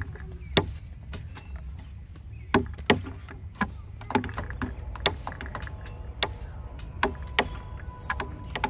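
Fresh green plant stems being picked by hand, giving irregular sharp snaps about once or twice a second over a steady low rumble.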